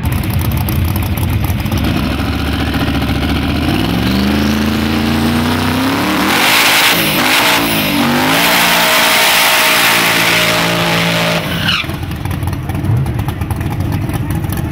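Drag-racing truck engines revving hard. Then a burnout: the engine is held high while the rear tire spins and squeals for about five seconds, cutting off sharply near the end.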